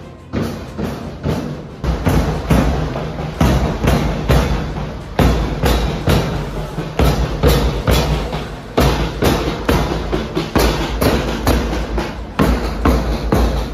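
School marching band playing, its drums beating a steady march of about two strokes a second, with a deep bass drum joining about two seconds in.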